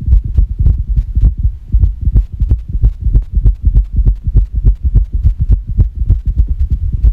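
Irregular heartbeat: quick, uneven low thumps, several a second.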